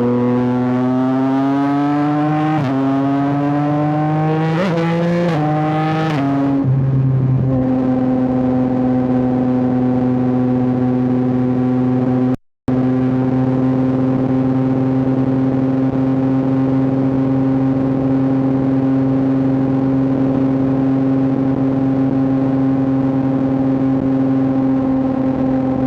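Yamaha R9's three-cylinder engine accelerating hard, its pitch climbing and briefly breaking at three quick upshifts in the first six seconds, then running at a steady pitch at cruising speed. The sound cuts out for a split second about halfway.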